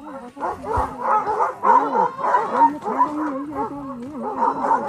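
A team of sled dogs barking, yelping and howling together while the team stands still, many voices overlapping without pause, as sled dogs do when held back and eager to run.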